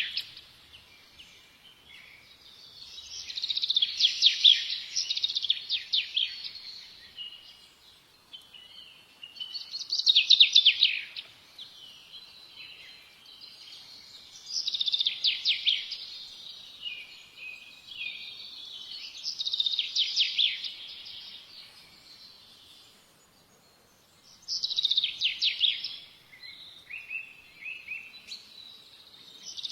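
A songbird singing, repeating a short phrase of rapid trilled notes about every four to five seconds, with pauses between phrases.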